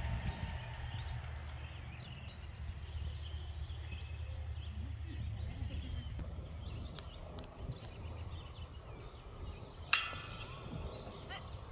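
Outdoor ambience: a steady low wind rumble on the microphone with scattered faint bird chirps, and a single sharp knock about ten seconds in.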